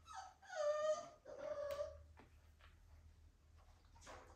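Six-week-old American Bully puppy whining as it is given its five-way vaccine injection: two high cries in the first couple of seconds, the first falling in pitch. A few faint clicks follow.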